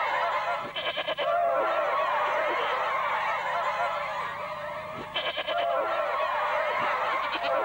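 A chorus of many overlapping, high, wavering cries with a honking quality, from the soundtrack of a Nissin Cup Noodles commercial, with two brief rattling bursts, about a second in and again about five seconds in.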